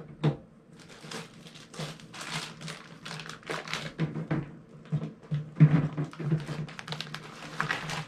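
Condiment bottles and jars clattering and knocking as they are set into a portable fridge's compartment, with rustling of packaging. Irregular taps and knocks come throughout, over a faint steady hum.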